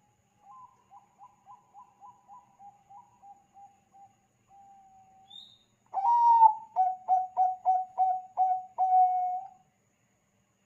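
Zebra dove (perkutut bangkok) cooing. A faint run of quick staccato coos ends in a held note. About six seconds in, a much louder song follows: about eight rapid coos ending in a longer drawn-out coo.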